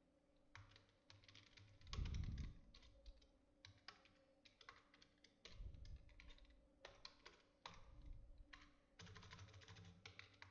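Faint computer-keyboard typing in short runs of keystrokes, with one louder dull thump about two seconds in.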